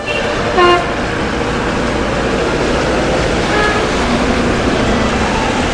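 Steady street traffic noise on a wet road, with a brief horn toot about half a second in.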